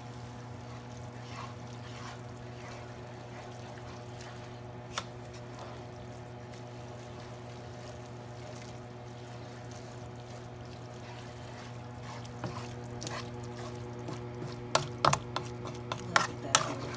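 Wooden spoon stirring and tossing sauced spaghetti in a nonstick skillet, with soft wet sounds from the pasta. Sharper clacks and scrapes of the spoon against the pan come near the end, over a steady low hum.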